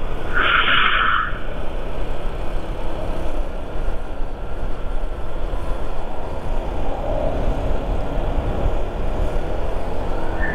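Motorcycle riding along at steady speed: engine running under a steady rush of wind on the mic. A short high-pitched blip sounds about half a second in.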